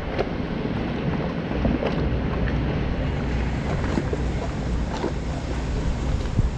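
Wind buffeting the microphone: a steady low rumble under a rushing hiss, with a few light knocks scattered through it.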